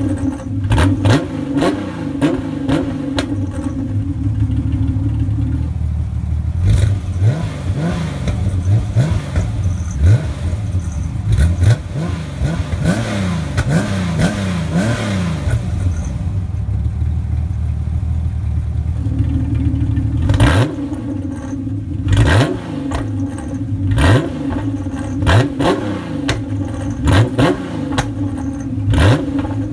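TVR T350T's straight-six engine revved repeatedly through a customised stainless exhaust with Guerrilla Bypass cut-out valves, in quick rising-and-falling blips with sharp cracks between them. A steady drone holds between bursts at the start and again through the last third.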